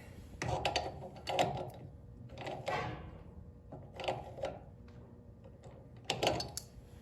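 Small adjustable wrench working the tensioning nut on a garage door opener's drive-chain bolt, metal clicking and scraping in five short bursts as the chain is taken up to taut.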